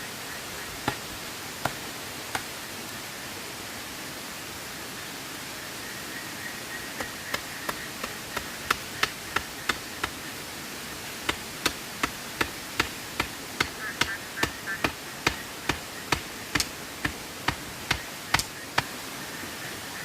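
Sharp chopping knocks, three spaced ones at first, then a quick regular run of about two or three a second through most of the second half, over a steady rush of flowing water.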